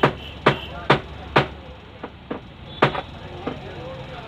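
Fingertip tapping on the glass touchscreen of a Samsung Galaxy Star smartphone: four sharp taps about half a second apart, then a few fainter scattered taps and one more sharp one about three seconds in, over a low steady hum.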